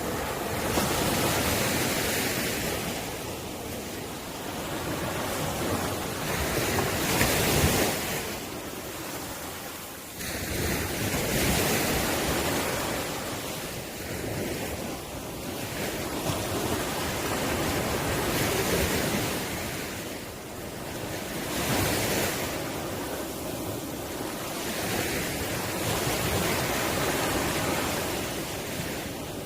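Ocean waves breaking and washing up on the shore, swelling and fading every few seconds, with the loudest break about seven to eight seconds in.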